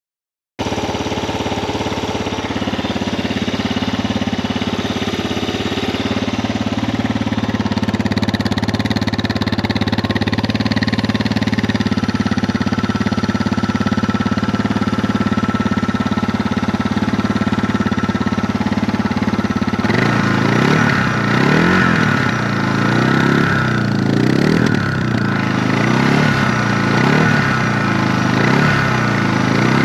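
Suzuki DR650SE single-cylinder motorcycle engine idling steadily through its exhaust. From about twenty seconds in, the engine note swells and falls again and again, roughly once a second.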